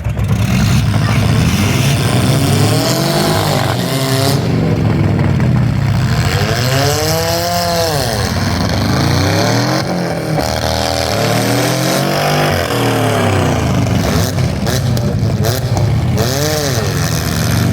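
Several demolition-derby cars' engines revving hard and dropping back over and over, their pitch rising and falling as the cars accelerate and back off, with a few sharp knocks near the end.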